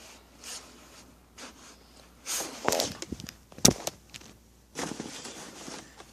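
Handling noise: objects being rustled and moved about, with one sharp knock a little past halfway through and more rustling near the end.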